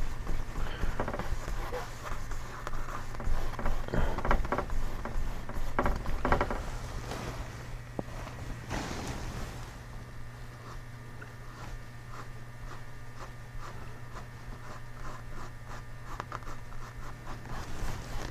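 Paintbrush scrubbing and stroking oil paint on a canvas in short, irregular scratchy strokes, louder in the first half. A steady low hum runs underneath.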